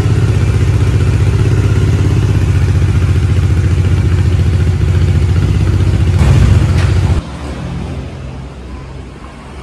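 Bajaj Dominar's single-cylinder engine idling steadily, running with engine flush mixed into the old oil before the oil is drained. It gets briefly louder about six seconds in and is switched off about seven seconds in.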